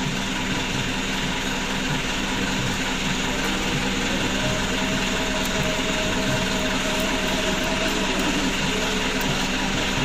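Steady hum of a running machine: an even drone with constant low tones, and a higher tone joining about four seconds in. A few faint light ticks sit on top of it.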